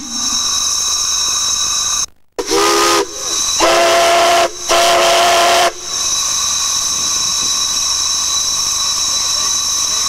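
Steam whistles blowing on a multi-whistle rack, with steam hissing. Shrill, high whistles sound steadily, and in the middle a deeper whistle with several notes at once gives three blasts, after a brief break in the sound.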